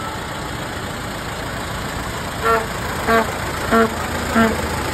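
Vintage motor horn honking in short, evenly spaced toots, about one and a half a second. The toots start halfway through, four of them over a steady background noise.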